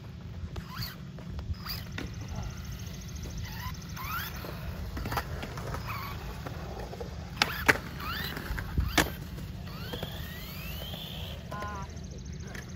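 Electric motor of a 1/16-scale RC truggy whining up and down in pitch as it is driven over concrete, over a steady low rumble. A few sharp knocks come in the second half and are the loudest sounds.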